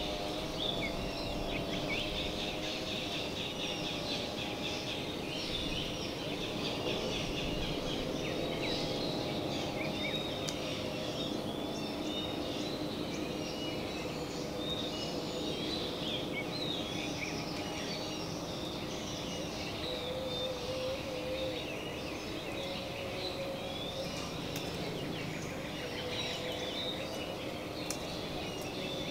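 Many wild birds chirping and trilling together in a dense chorus, over a steady low drone.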